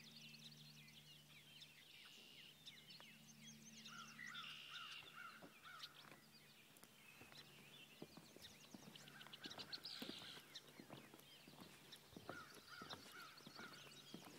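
Several birds singing and chirping at once, one of them repeating a short note in runs of about five, twice. From about five seconds in, footsteps knock on wooden boardwalk planks.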